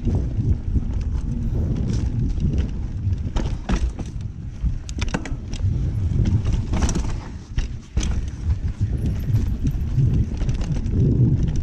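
Mountain bike riding down a rough trail: wind rumbling on the camera microphone, with the bike rattling and knocking sharply over rocks and roots many times.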